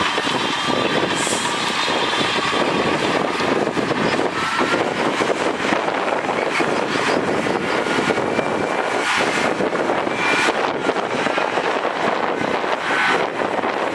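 Heavy earthmoving machinery running steadily, with faint high whines now and then.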